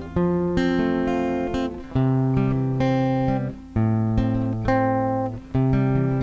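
Background music on guitar: sustained chords changing about every second and a half.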